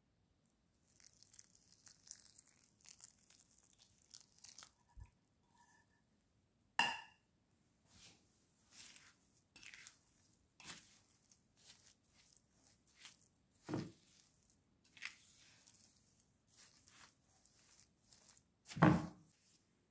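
Silicone spatula stirring crushed vanilla cookie crumbs into melted butter in a glass baking dish: a faint hiss in the first few seconds while the hot butter is poured on, then repeated short gritty scrapes, with louder knocks of the spatula about seven seconds in and near the end.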